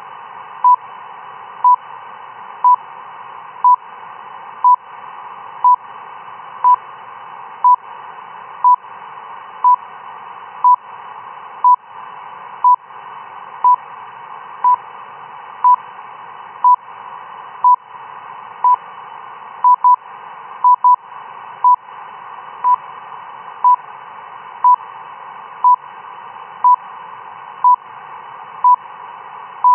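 RWM shortwave time-signal station received through a software-defined radio: short 1 kHz beeps once a second over steady band hiss. A few extra, closely spaced pips come about two-thirds of the way through.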